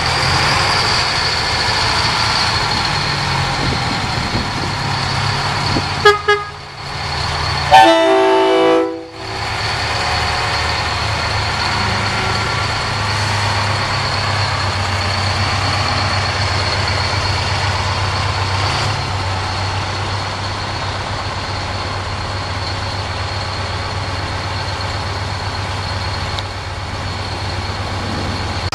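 Detroit Diesel engine of an FTF truck running steadily as the truck pulls away. About six seconds in, a short air-horn toot sounds, followed a second later by a louder, longer air-horn blast of several tones.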